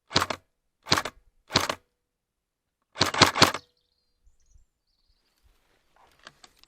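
Airsoft electric gun firing short bursts: three quick bursts about two-thirds of a second apart, then a longer burst of three rapid shots about three seconds in. Faint clicks follow near the end.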